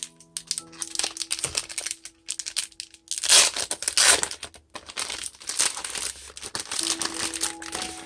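Paper and plastic packaging crinkling and rustling as it is handled and unwrapped, loudest about three to four seconds in. Soft background music with a few held notes runs underneath.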